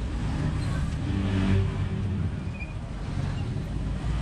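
Low, steady rumble of a motor vehicle running, with a short pitched hum a little over a second in.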